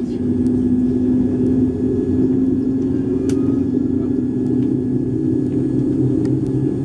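Boeing 787-9 engine starting, heard from inside the cabin: a steady low rumble with a hum that slowly rises in pitch as the engine spools up.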